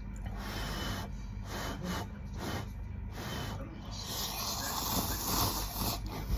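Close-miked eating noises: a run of short chewing sounds, then a longer continuous stretch of mouth and food noise from about four seconds in.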